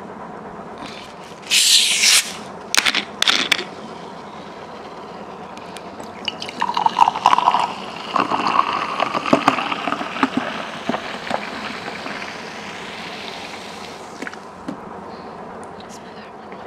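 Liquid being poured into a glass or container for about seven seconds, loudest early in the pour and fading toward the end. A few brief bursts of noise come in the first few seconds.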